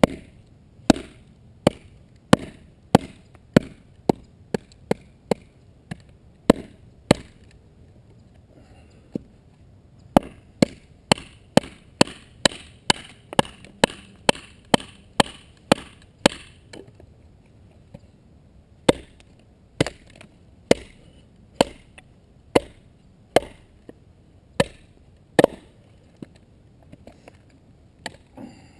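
Bushcraft knife being struck into wood, with sharp, hard knocks in runs. They come about one to two a second at first, then in a quicker run of about two a second after a short pause, then slow to about one a second.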